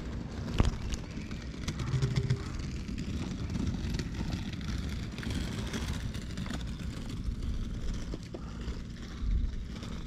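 Steady low rumble of sea waves and wind on an open breakwater, with soft rustles of a hand stroking a cat's fur close to the microphone and a sharp click about half a second in.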